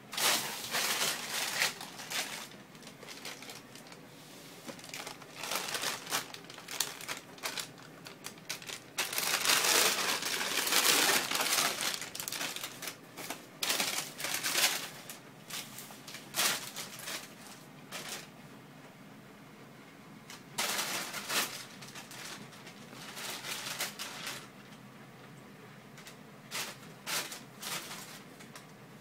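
Thin plastic carrier bag crinkling and rustling in irregular bursts as a kitten paws and pounces on it and a hand moves it. The loudest, longest run of crinkling comes about a third of the way in, with short lulls later on.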